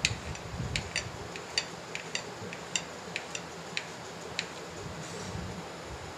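Kitchen knife tapping against a plate while dicing peeled mango: irregular sharp ticks, about two a second, thinning out after about four seconds.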